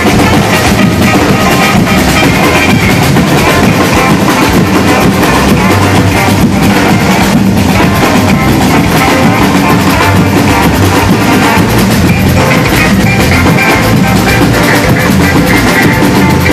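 Batucada drum ensemble playing a loud, dense samba rhythm that stays steady throughout.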